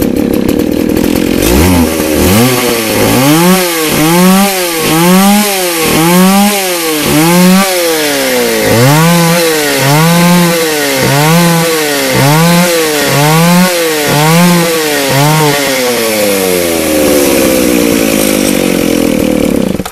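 McCulloch Pro Mac 610 two-stroke chainsaw running, its throttle blipped to full and released over and over, about once a second, before it settles and is shut off at the end. It revs cleanly to full throttle without cutting out, the sign that cleaning sawdust out of the carburettor has cured its bogging at full throttle.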